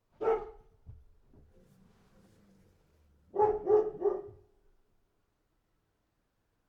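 A dog barking: a single bark, then about three seconds later three quick barks in a row.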